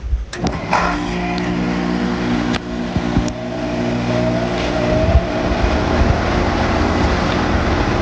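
Outdoor unit of a 2-ton central air heat pump starting across the line, with no soft start, on solar inverter power. There is a click as it switches on, then a steady hum, and a rush of air from the fan that grows louder as it spins up.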